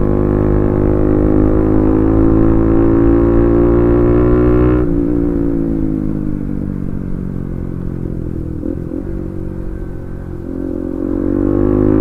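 Bajaj Pulsar NS200 motorcycle's single-cylinder engine, its exhaust dB killer removed, held at steady throttle. About five seconds in the throttle is closed and the note drops, then it picks up again near the end.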